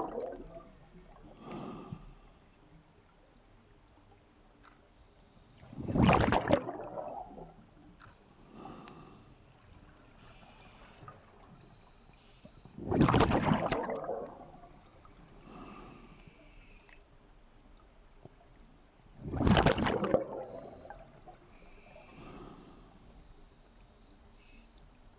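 Scuba diver breathing through a regulator underwater: three loud rushes of exhaled bubbles about six and a half seconds apart, each followed a couple of seconds later by a quieter inhalation hiss.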